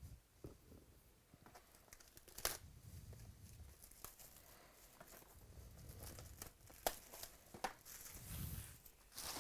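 Trading card pack wrappers being torn open and crinkled by hand: a few sharp rips among quieter rustling, faint overall.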